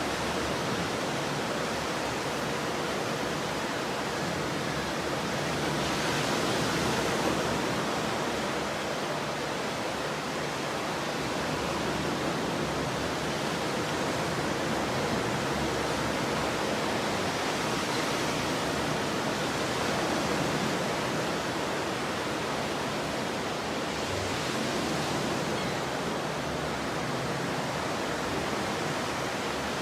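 Ocean surf: a steady wash of breaking waves that swells a little three times.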